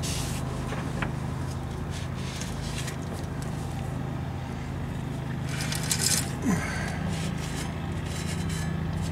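A cloth rag rubbing and wiping on a new brake rotor, in brief scuffs with the loudest around six seconds in. A steady low mechanical hum runs underneath.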